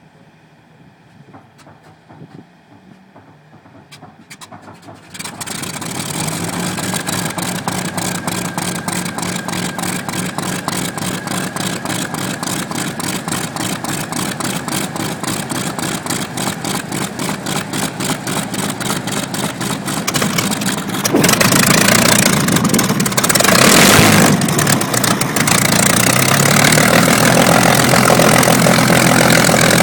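A large piston aircraft engine of a warbird fighter starting up: it catches about five seconds in and settles into an idle with a fast, even pulsing beat. About twenty seconds in it is opened up to a louder, higher run, with a brief surge a few seconds later.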